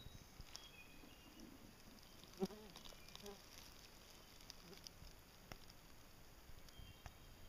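Quiet woodland ambience with a few faint, short, high chirps. About two and a half seconds in there is a brief low pitched call with several overtones, and a weaker one about a second later.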